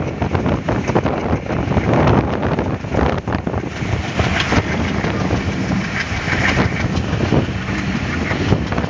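Wind rushing over the microphone at the open window of the moving Nilsagar Express, over the running rumble of the train with frequent irregular clatter from its wheels on the track.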